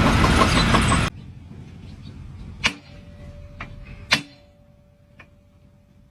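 Loud music that cuts off about a second in, followed by a quieter stretch with three sharp knocks, the second the loudest, over a faint steady hum.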